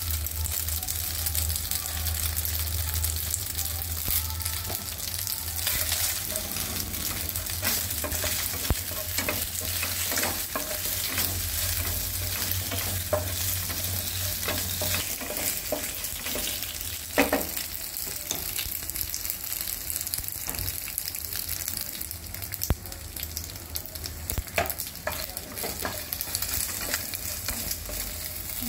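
Macaroni and paneer cubes sizzling in ghee in a non-stick frying pan, stirred with a wooden spatula that scrapes and taps against the pan, with one sharper knock about halfway through.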